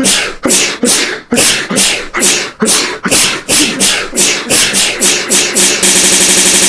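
A person sneezing over and over, one sneeze after another, faster and faster, until near the end the sneezes run together into a rapid stutter.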